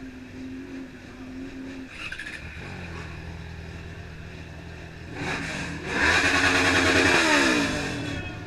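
Motorcycle engine running at idle, then revved up hard about five seconds in. It is held loud at high revs for about a second, then the revs fall away.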